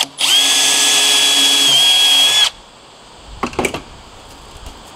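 Power drill running steadily for about two seconds, then cutting off, as it drills holes in the PVC air intake pipe; a couple of light knocks follow.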